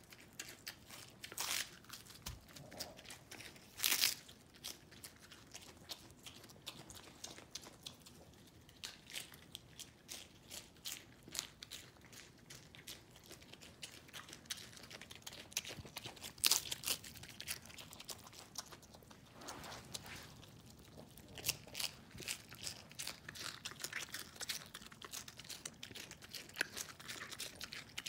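Small pig biting and chewing crisp lettuce: an uneven run of crunching bites and wet chewing clicks, with a few louder crunches, one about four seconds in and one midway.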